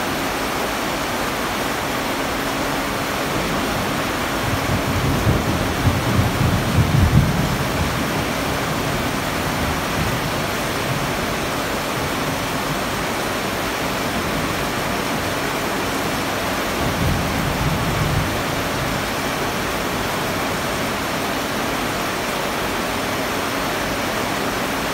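Heavy rain falling steadily in a dense hiss. A low rumble swells for a few seconds about five seconds in, and a shorter one comes near eighteen seconds.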